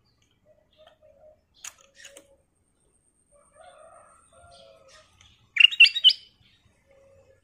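Kutilang emas (ruby-throated bulbul) in a cage giving a few soft scattered call notes, then about five and a half seconds in a loud, quick phrase of four or five chirped notes.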